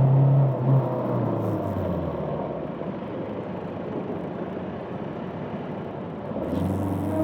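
Bristol Venturi 500 motorcycle's parallel-twin engine easing off, its note dropping over the first two seconds, then a low rumble at low revs before it picks up again near the end.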